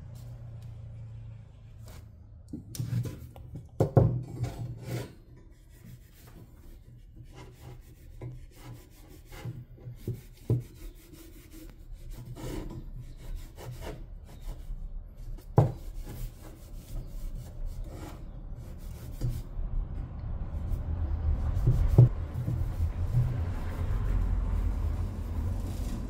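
Rubbing and scraping from hand work on a car's rear suspension, with scattered clicks and knocks of tools and parts. Sharp knocks stand out about four seconds in, again around the middle and once more near the end, over a steady low rumble.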